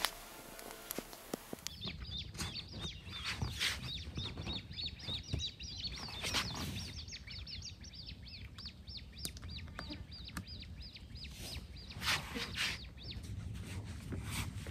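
Birds chirping in a fast, steady series of short, high, downward-curving notes, several a second, with occasional knocks and rustles from an inflatable kayak being handled and carried.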